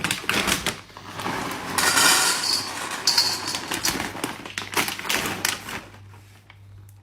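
A rapid, irregular run of taps, knocks and clatter, densest about two to three seconds in, dying away about a second before the end.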